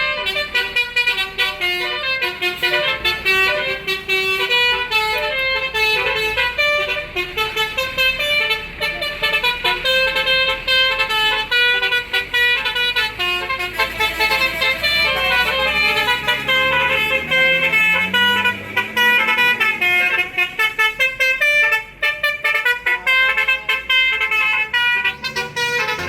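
Tour bus's telolet basuri multi-tone musical horn playing a fast, unbroken run of tune-like notes that change pitch quickly. About two-thirds of the way through, a low tone rises in pitch beneath the horn.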